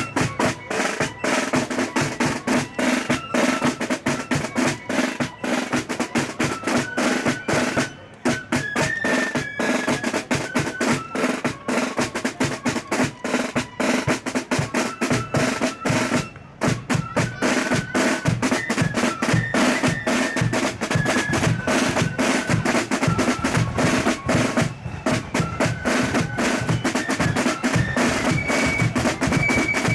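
Marching band playing: snare drums beating and rolling, with a bass drum, under a melody of held notes that steps up and down. The playing dips briefly twice.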